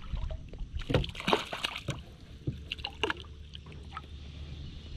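A hooked rainbow trout splashing at the surface beside a kayak as it is reeled in and lifted out of the water. The sharp splashes come in two clusters, about a second in and again around three seconds in.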